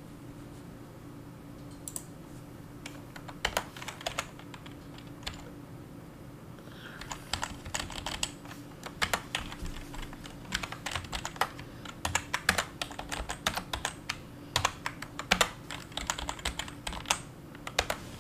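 Typing on a computer keyboard: irregular keystrokes, a few scattered at first, then quick runs of clicks from about seven seconds in until near the end. A faint steady hum runs underneath.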